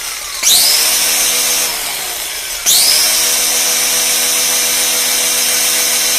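Ridgid 18V cordless angle grinder, its soft-start resistor removed, switched on from a stop and spinning up quickly with a rising whine about half a second in, then triggered again near the middle and running at a steady high whine. With the resistor cut out there is no slow ramp-up, and it sounds like it's spinning quite a bit faster.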